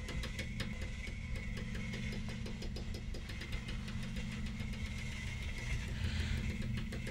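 Steady low mechanical drone with rapid, even ticking, like an idling machine, as ambient sound design in a film; a soft hiss swells briefly near the end.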